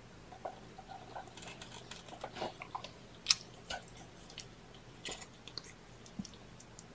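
A mother cat licking and grooming with her tongue: irregular small wet clicks and smacks, with one sharper click about three seconds in.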